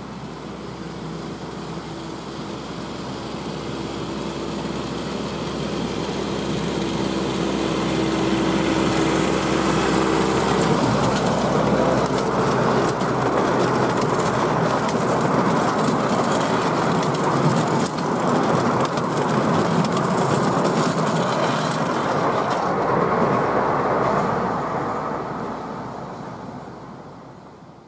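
Miniature railway train passing close by: a steady hum as it draws near, growing into the running noise of the passenger coaches with their wheels clicking over the rail joints, then fading away over the last few seconds.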